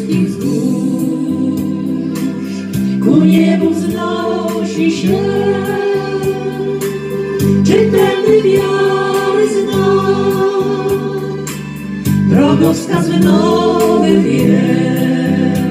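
A woman singing into a handheld microphone over a backing track, with held notes above a stepping bass line and a steady beat.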